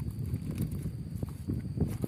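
A few dull knocks on a wooden canoe as a fish is worked free of a nylon gillnet and pressed against the boat's bench, most of them in the second half, over a steady low rumble.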